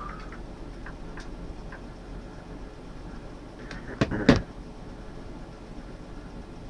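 A few faint clicks, then two sharp knocks close together about four seconds in, over a low steady hum.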